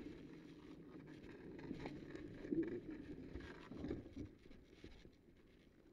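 Faint footsteps on asphalt and rustling of riding gear over a low rumble, with a few light knocks.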